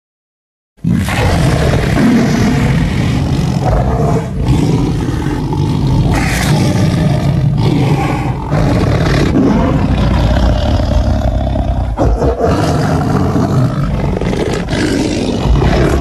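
Tiger roaring, deep and continuous, starting about a second in after a short silence, with a few brief dips.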